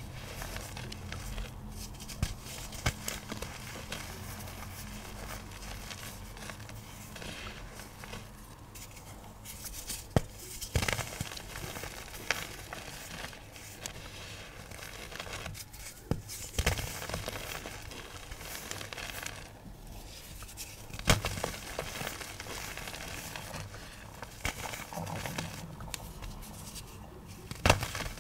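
Dry, chalky pigment chunks being crushed and crumbled: a continuous crackling with sharp snaps every few seconds.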